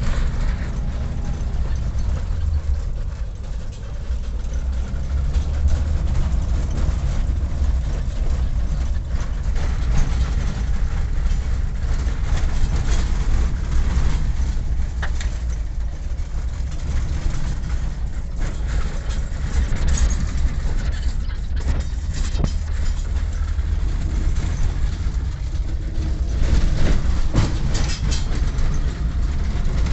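Steady low rumble of a vehicle on the move, heard from on board, with scattered rattles and knocks.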